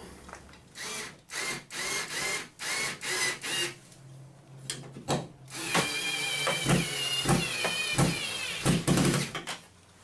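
Power drill spun up in a string of short bursts, then run in longer stretches with its whine wavering, with a few knocks between runs.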